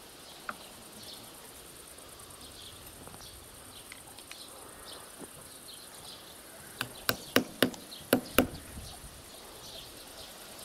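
Steel hammer striking a large nail into a wooden log: about six quick, sharp blows starting around seven seconds in, four in a row and then two more, punching a hole for the fixing.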